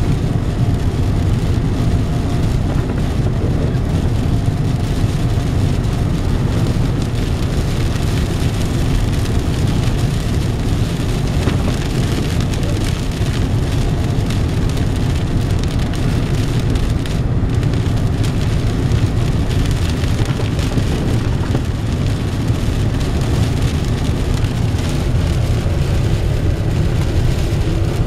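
Noise inside a moving car driving in rain: a steady low rumble from the road and engine, with rain hitting the windshield.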